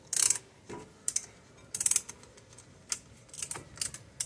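Short, irregular mechanical clicks and rasps, about one a second, as a hand tool pushes the brake caliper pistons back. The pistons go back easily under light pressure, the sign of a caliper that isn't sticking.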